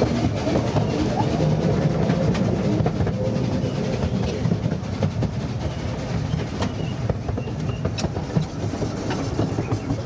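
Narrow-gauge steam railway carriage running along the track, heard on board: a steady rumble with scattered sharp clicks and knocks from the wheels on the rails.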